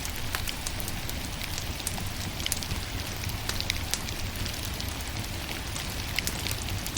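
Firewood burning with a steady crackle: frequent sharp pops and snaps over an even hiss and a low rumble.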